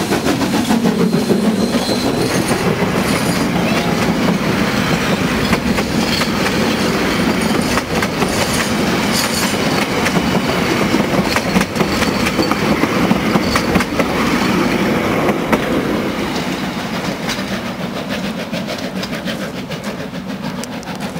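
Steam locomotive A428 working past close by with its passenger carriages, the wheels clicking over the rail joints as the carriages roll by. The sound fades over the last few seconds as the train draws away.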